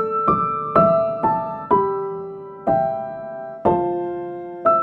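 Gentle piano music: single notes and chords struck slowly, about one a second or less, each left to ring and fade.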